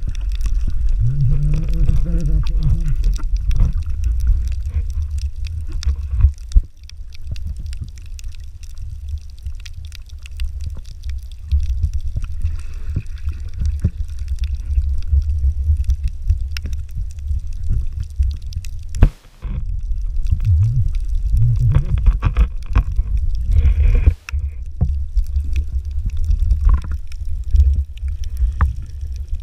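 Underwater camera audio: a steady low rumble of water moving against the camera housing. A few brief, muffled wavering tones come through about a second in and again around twenty seconds in.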